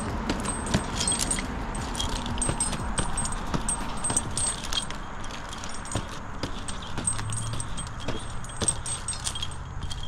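Metal climbing hardware on a tree climber's harness jingling and clinking in irregular clicks as he works his way up the trunk.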